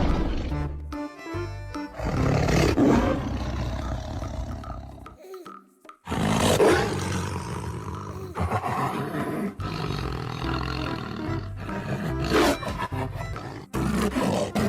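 Lion roaring several times, each roar starting suddenly, over background music.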